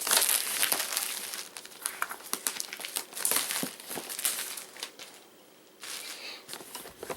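Cellophane shrink-wrap being slit and pulled off a cardboard box, crinkling and tearing in irregular bursts, with a short pause about five seconds in.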